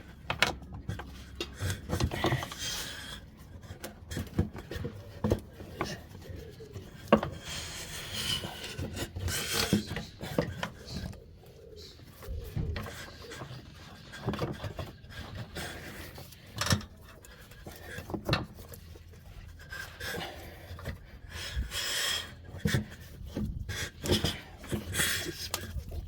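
Pry bar levering a worn rear air suspension spring out of its mount on a 2015 Range Rover Sport (L494): irregular knocks and clicks with scraping in between.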